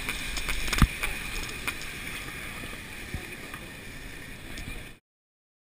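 Steady outdoor background noise at a ski chairlift's top station, with one sharp knock about a second in. It fades a little and then cuts to silence about five seconds in.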